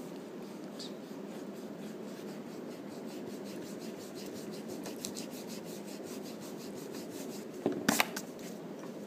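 Wooden pencil scratching on paper in quick repeated strokes, as in sketching or shading. A couple of sharp knocks near the end stand out louder than the strokes.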